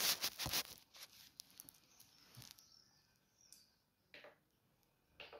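Handling noise from the phone being set in place: rustling and several soft knocks at the start, dying away within about two and a half seconds. Then two brief soft rustles, about four and five seconds in.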